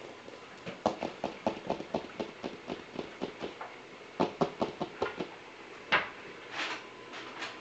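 A puppy feeding at a bowl: two runs of quick, rhythmic clicks, about four or five a second, then a single louder knock about six seconds in and two short hissy sounds near the end.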